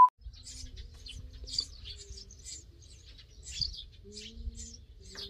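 A short electronic test-tone beep right at the start, then small birds nesting under a roof eave chirping in many quick high calls, with a few low steady notes coming and going.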